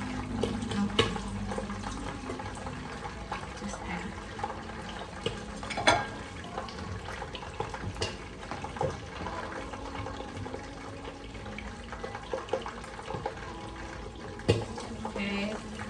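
Tomato and onion sauce sizzling in a cooking pot over medium-high heat, with a spoon stirring it and knocking against the pot now and then.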